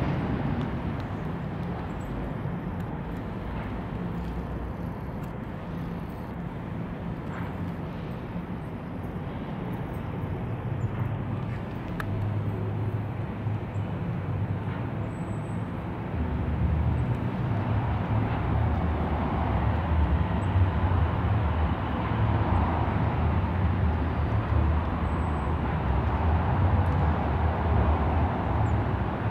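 Steady low rumble of motor traffic, growing louder about halfway through.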